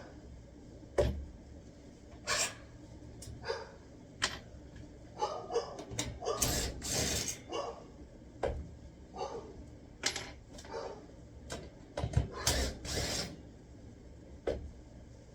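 Irregular knocks, clicks and scrapes of hands-on work with tools and parts, with a longer scraping stretch around six to seven seconds in and another around twelve to thirteen seconds in.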